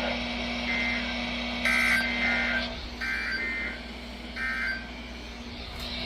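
Weather alert radio beeping: about five short, high electronic beeps over a faint steady hum.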